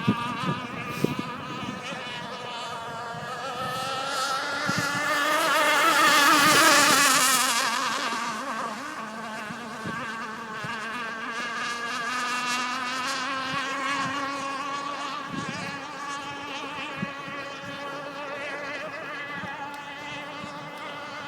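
High-pitched buzz of an RC hydroplane racing boat's Quickdraw 25HT power plant running laps at speed, growing louder to a peak about six or seven seconds in as the boat passes close, then carrying on as a steadier, more distant buzz.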